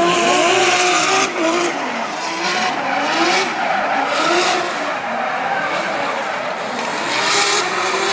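Two drift cars in a tandem run, their engines revving up and down at high revs while the tyres squeal and skid through the slides.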